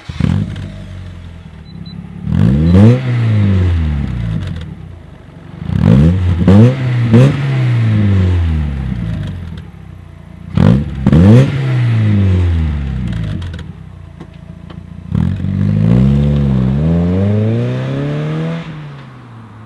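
1991 Mazda Miata's 1.6-litre four-cylinder engine breathing through a Borla cat-back exhaust: it starts, settles to idle, then is revved four times in quick blips that rise and fall back to idle.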